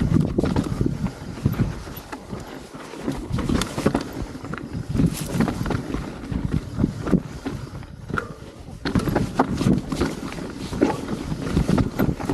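Mountain bike riding over rough, rocky trail: wind buffeting the microphone, with tyres crunching and the bike rattling and knocking over bumps.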